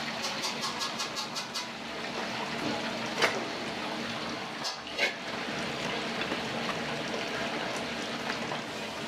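Restaurant kitchen noise at the wok station: a quick run of light taps, then a steady rushing sound with two sharp knocks.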